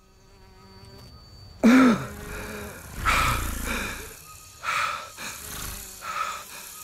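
Film sound design of an alien jungle: a faint ambient drone, then a sudden loud creature call with a falling pitch about two seconds in, followed by several more wild animal-like calls.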